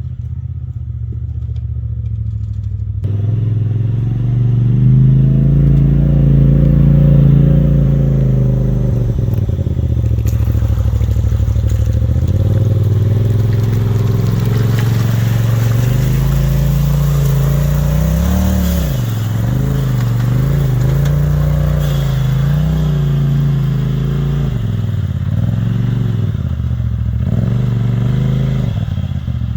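Polaris side-by-side engine running and revving, its pitch rising and falling as the throttle is worked. It gets louder about three seconds in.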